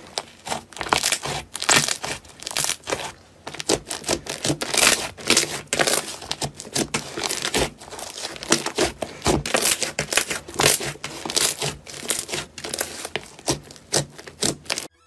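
Hands squeezing, folding and pressing thick slime, giving a dense, irregular run of crackles and pops.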